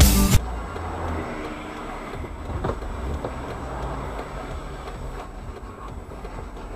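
Steady low road and engine rumble from a moving car, as picked up by a dash camera inside it, with a few faint clicks.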